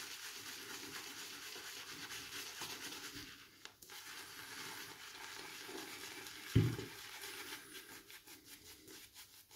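Semogue 820 boar-bristle shaving brush scrubbing lather over the cheek and beard in fast strokes, a steady bristly scratching rub. A brief low thump comes about six and a half seconds in.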